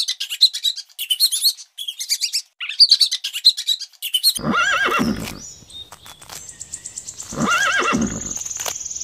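Quick runs of short, high chirps for about four seconds, then a horse neighs twice, about three seconds apart. A steady high trill sounds behind the second whinny.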